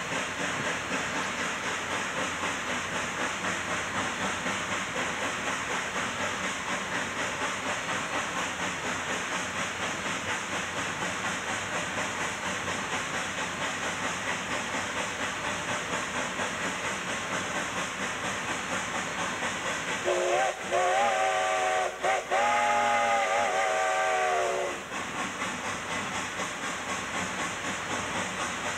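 K-36 2-8-2 narrow-gauge steam locomotive working hard upgrade with a heavy tonnage train, heard from inside the cab: a steady, rhythmic exhaust beat with hiss. About two-thirds of the way through, a steam whistle sounds three times, a short blast, a slightly longer one and then a long one.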